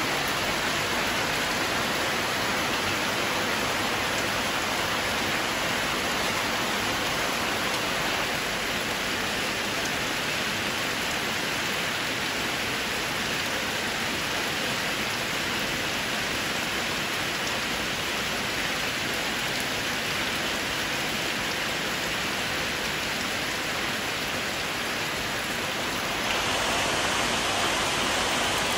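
Steady heavy rain falling, a dense even hiss that grows a little louder near the end.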